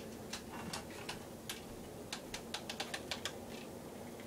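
Irregular light clicks and taps of small objects being handled, coming faster for a stretch in the middle, over the steady low hum of a running ceiling fan.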